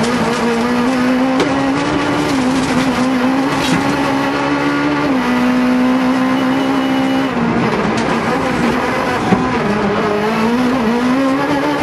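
Rally car engine working hard at high revs, heard from inside the cabin while the car is driven flat out on a gravel stage, with road and gravel noise underneath. The engine note rises and falls with throttle and gear changes and holds level for a couple of seconds in the middle.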